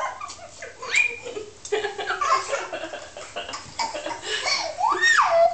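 A young girl laughing and squealing with delight. A long, high squeal rises and falls near the end and is the loudest sound.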